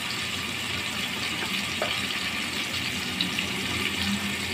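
Ghee sizzling steadily in a pot as tomatoes, green chillies, whole spices and ground masala fry in it, with a couple of light clicks near the middle.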